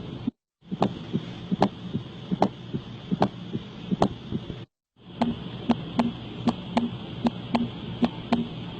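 Recorded heart sounds from teaching examples: sharp heartbeats recurring about every 0.8 seconds over a steady hiss. After a brief break a second recording follows, with a faster, more closely spaced run of beats.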